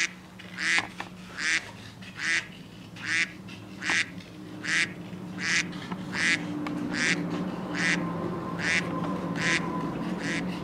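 Scissors cutting construction paper: about a dozen rasping snips, one every 0.8 seconds or so, over a low steady hum.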